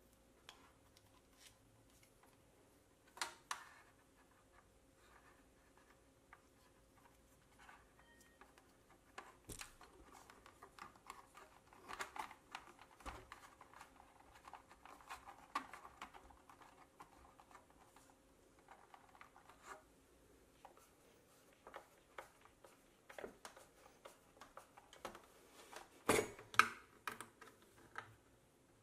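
Faint clicks, taps and rustles of hands handling small screws, wire connectors and plastic parts on a plastic cooler-box housing, with a sharper cluster of clicks about 26 seconds in. A faint steady hum runs underneath.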